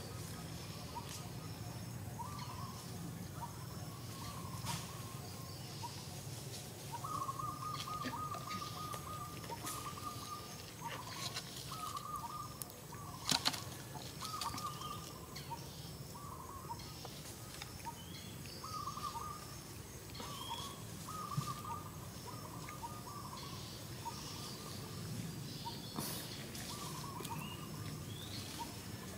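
Birds calling: a long string of short, repeated calls at much the same pitch, with a few higher chirps mixed in and a sharp click about halfway through, over a steady low background hum.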